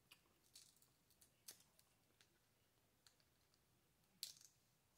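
Faint, scattered clicks and crackles of boiled crawfish shell being peeled apart by fingers, with one louder crack about four seconds in.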